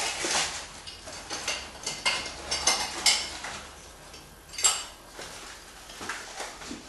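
Small blind-fitting hardware, screws, plastic wall plugs and brackets, clinking and rattling as it is handled, with a few sharper clicks.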